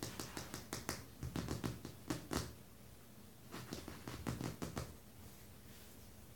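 Two runs of quick, sharp clicks, several a second: the first through the first two and a half seconds, the second around four seconds in.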